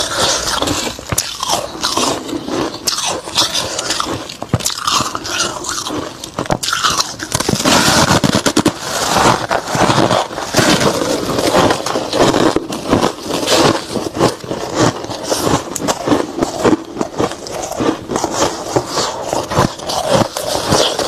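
Soft freezer frost being bitten and chewed close to a microphone: dense, irregular crunching and crackling, growing louder about seven seconds in.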